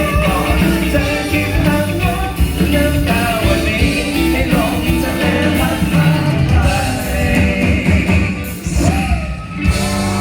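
Live rock band playing with a singer, loud and full; the music thins out briefly about nine seconds in.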